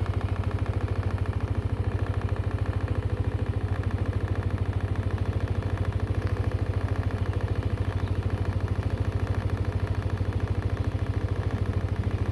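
Vehicle engine running steadily at an even speed, with a fast, regular pulse and a strong low hum.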